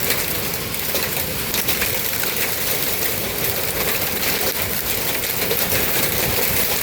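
Hail and heavy rain pelting a porch awning: a steady, dense patter of many small hard hits over the rush of the downpour.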